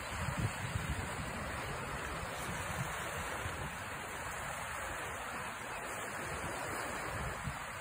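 Waves washing against the rocks of a jetty, a steady hiss of water, with wind buffeting the microphone in low rumbles that are strongest about half a second in.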